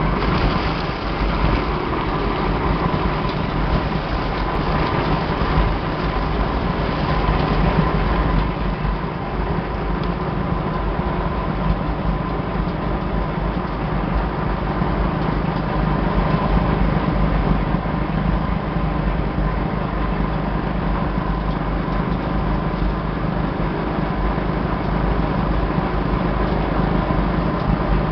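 Plastic film agglomerator running: its rotor spins fast in the drum, chopping and churning plastic film, with a steady loud machine noise and a constant hum. The noise is rougher in the first several seconds while film is pushed in.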